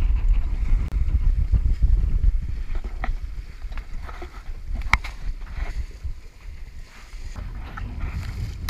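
A Mewa sailing dinghy under way in a fresh breeze: water rushing and splashing along the hull, with wind buffeting the microphone. The wind rumble eases after about two and a half seconds, and there is a single knock about five seconds in.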